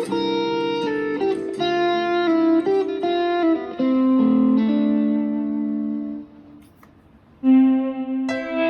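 Electric guitar playing a slow melody of single notes left to ring. A held note fades out about six seconds in, there is a short pause, then a loud new note is struck near the end.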